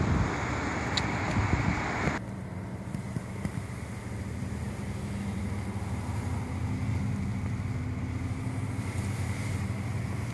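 Dodge Charger's engine idling steadily, heard from the cabin. Wind buffets the microphone for about the first two seconds, then stops suddenly.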